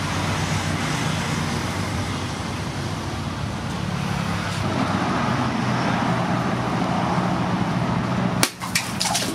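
Steady engine-like drone of a running motor in the background, then about a second before the end a single sharp strike of a sword blade, followed by a few quick clicks.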